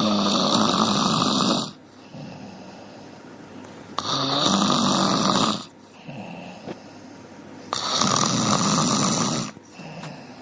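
Dog snoring in its sleep: three long, loud snores about four seconds apart, each lasting under two seconds, with much quieter stretches between them.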